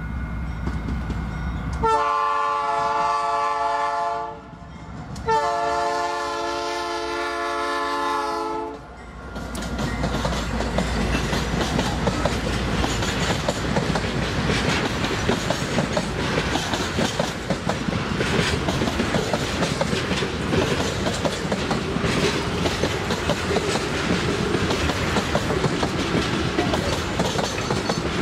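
Diesel freight locomotive sounding its multi-tone horn in two long blasts, then the train's wagons rolling past with a steady rumble and the clickety-clack of wheels over the rails.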